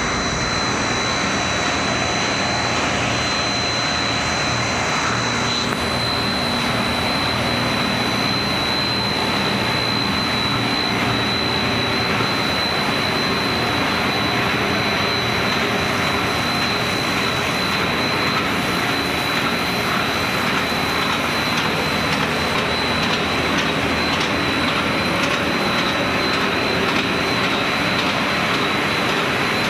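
Snack food production line machinery running: a loud, steady roar with a constant high-pitched whine.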